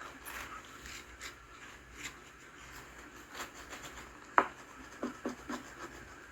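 Squeegee rubbing and scraping over vinyl decal film on wet glass, squeezing soapy water out from under it, in short irregular strokes, with a sharp tap about four seconds in.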